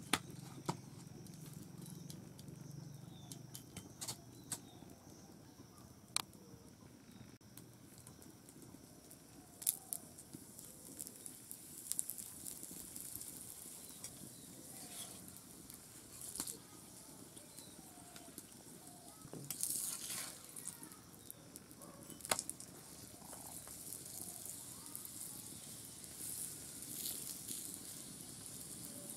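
A stuffed paratha frying in oil on a flat iron tawa over a wood fire. It gives a faint sizzle that grows stronger about halfway through, with scattered sharp clicks and taps from the metal spatula and the pan.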